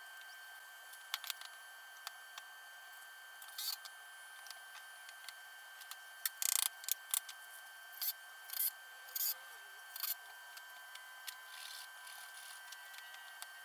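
Workbench handling noises while assembling a pine 2x4 table leg: scattered clicks, knocks and short scraping bursts of wood and tools, the loudest cluster about halfway through. All of it sounds thin, with no low end, over a faint steady high tone.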